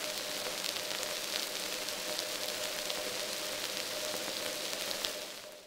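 Arturia ARP 2600 V software synth playing a rain-imitating patch made from two ring-modulated oscillators rather than its noise generator: a steady crackling hiss like rain, with reverb added. The filter's resonance cuts through as a faint steady tone, and the sound fades out near the end.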